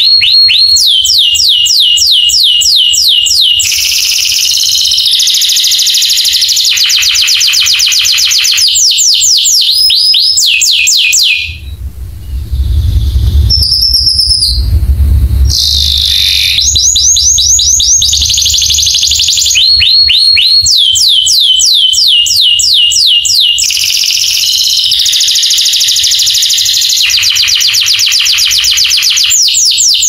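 Domestic canary singing: long phrases of fast trills, each a run of rapid repeated high notes, switching to a new trill every second or two. About 11 s in, the song breaks off for a few seconds under a low rumble with only a few notes, then the trilling resumes.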